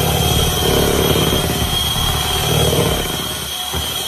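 Electric hand mixer running at speed, its twin beaters whipping double cream toward stiff peaks. A steady high motor whine sits over a churning, slapping sound from the cream.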